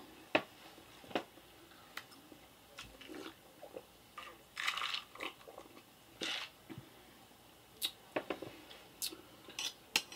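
Close-up eating sounds: chewing a mouthful of goulash (macaroni in beef sauce), with scattered short mouth clicks and smacks, and a sip from a glass of iced sparkling drink partway through.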